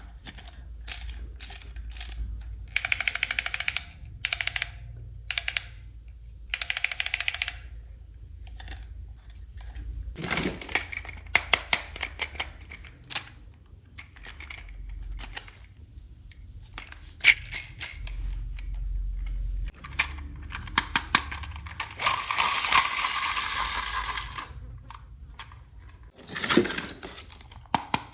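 Small plastic toy parts clicking and tapping as they are handled and fitted together, with a few bursts of rustling packaging, the longest about three quarters of the way through.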